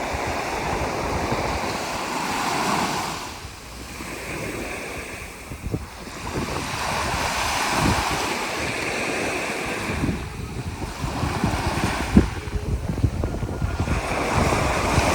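Sea waves breaking and washing ashore in surges that swell and ebb every few seconds, with gusty wind buffeting the microphone, the buffeting stronger near the end.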